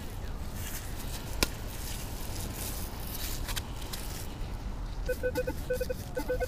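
Minelab Equinox 600 metal detector sounding a run of short repeated beeps, a few a second, from about five seconds in as the coil passes over a target: a signal the detectorist takes for probably a pull tab. Before that there is a low rumble with one sharp click about a second and a half in.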